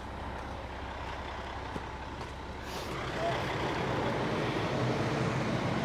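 Concrete mixer truck's diesel engine running steadily, growing louder from about three seconds in.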